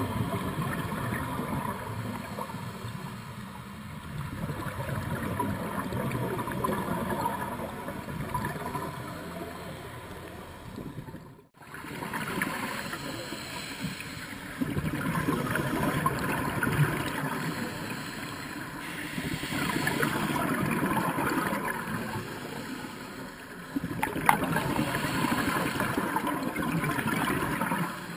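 Underwater sound inside a dive camera's housing: a muffled rushing and gurgling, as of scuba exhaust bubbles, swelling and easing in stretches of a few seconds. It drops out briefly about eleven seconds in.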